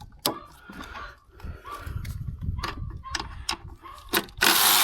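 Scattered metal clicks and knocks of a socket and wrench being handled and fitted under the hood, then near the end a loud, steady ratcheting as a socket wrench turns out a 10 mm bolt.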